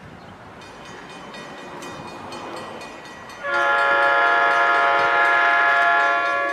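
Train approaching with a rising rumble, then the locomotive's multi-chime air horn sounding one long blast of about three seconds, starting about halfway in.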